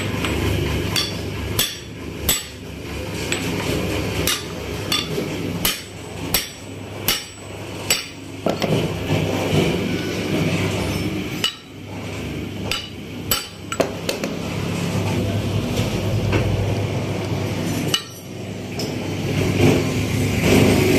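Hammer striking steel in irregular sharp blows, some in quick pairs, while a motorcycle crankshaft's flywheel halves and connecting rod are driven together on a steel jig. A steady low hum runs underneath.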